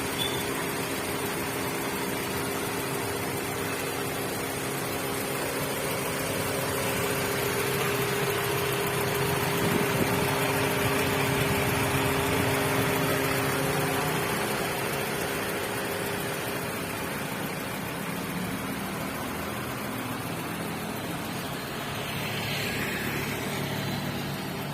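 1991 Honda Grand Civic's engine running steadily, a continuous hum whose tone shifts lower about two-thirds of the way through.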